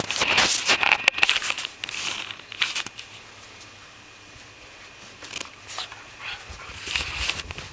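Corgi puppy and a larger dog play-fighting, with short dog noises and scuffling. The sounds come densely through the first three seconds, ease off, then pick up again in the last couple of seconds.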